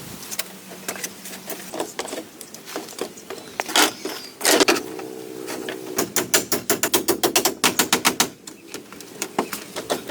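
Scattered sharp knocks and taps, with a fast even run of about ten a second lasting a couple of seconds past the middle, and a brief ringing tone just before it.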